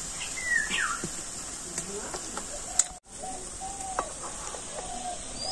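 Light clinks of steel bowls being set onto a metal steaming stand over boiling water, with a bird calling in the background: a quick chirp about half a second in and a run of short repeated calls in the second half.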